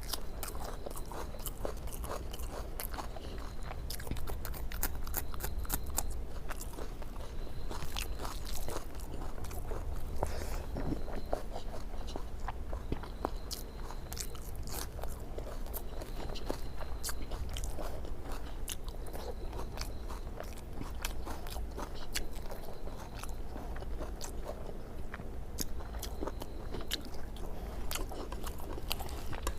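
Close-up chewing and eating sounds of a person eating egg curry, fish and rice, with many small wet mouth clicks and smacks.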